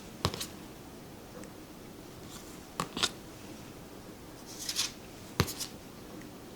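Tarot cards handled one at a time, each a short papery swish followed by a sharp tap as it is set down, three times about two and a half seconds apart.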